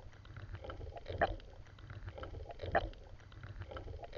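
Rhythmic strokes through water, one strong splash about every one and a half seconds with lighter sounds between, over a steady low rumble.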